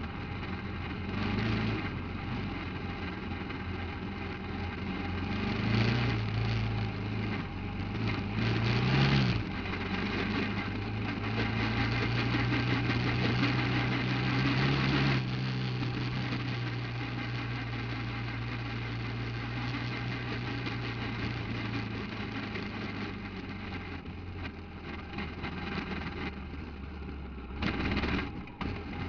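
Off-road buggy engine running. It revs up briefly a couple of times, holds a higher note for a few seconds, then drops back to a steadier, lower run.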